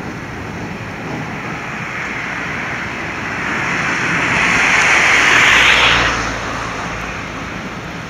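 A car passing close by on the street, its tyre and road noise building to a peak about five to six seconds in and then falling away quickly, over steady traffic noise.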